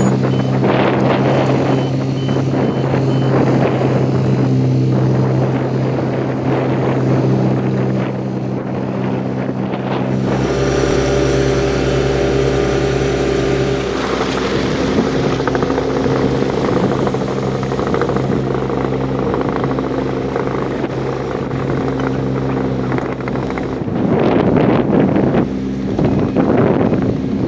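Diesel engines of heavy earthmoving machines running under load, several engine notes stepping up and down as the machines work, with wind buffeting the microphone.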